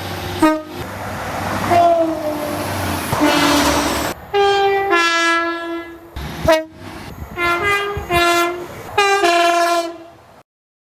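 British passenger trains sounding two-tone horns: a run of short blasts, each a higher note then a lower one, in several short segments that cut abruptly from one to the next. For the first few seconds the rush of a passing train runs under the horns, and a horn note falls in pitch as the train goes by. The sound cuts off just before the end.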